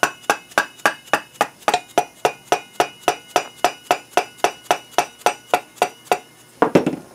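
Steel front axle knocking in the hub of a motorcycle front wheel as it is worked by hand through the freshly fitted wheel bearings to check the fit: a steady run of sharp metallic knocks, about three or four a second, each with a short ring, and a quicker flurry of knocks near the end.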